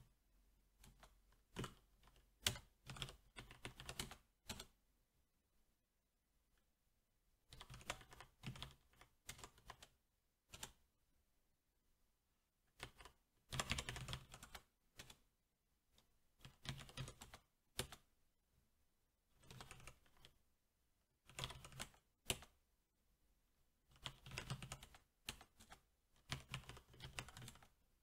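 Typing on a SteelSeries 6Gv2 mechanical keyboard with Cherry MX Black switches: about six bursts of rapid key presses, with gaps of a second or two between them.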